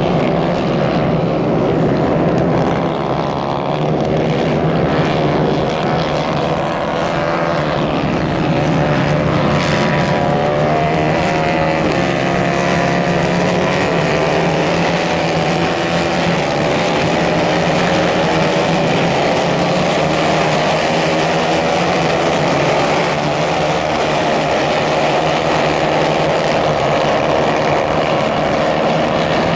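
Several 150 cc racing karts running flat out together. Their engines make a continuous buzzing blend of tones that slowly drift up and down in pitch as the karts accelerate and pass.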